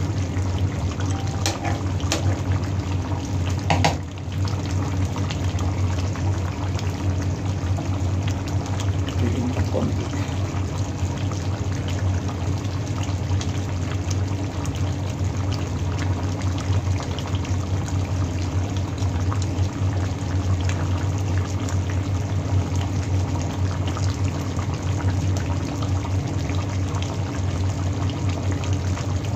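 Chicken caldereta sauce bubbling at a steady simmer in a large pan, reducing, over a steady low hum. A few sharp clicks of a metal ladle against the pan in the first few seconds.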